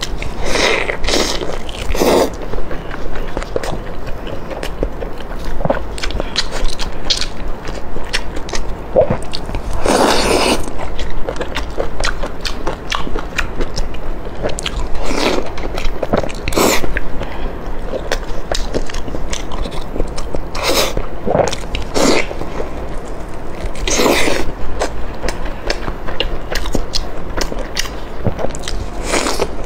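Close-miked eating sounds of a woman biting and chewing sauce-glazed fried dough balls: a dense run of small clicks and crackles, with a louder bite every few seconds.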